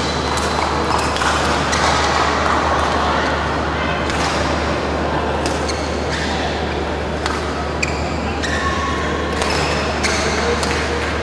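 Badminton hall ambience between rallies: many voices chattering, with scattered sharp racket-on-shuttlecock hits and short shoe squeaks on the court floor, over a steady low hum.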